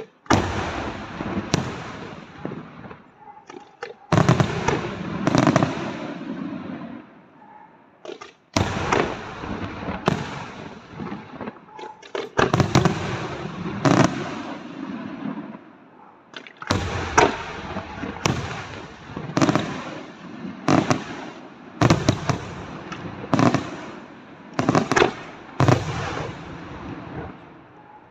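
Aerial firework shells bursting one after another, each sharp bang trailed by a long echo. The bangs come in clusters at first, then settle to about one a second in the last third.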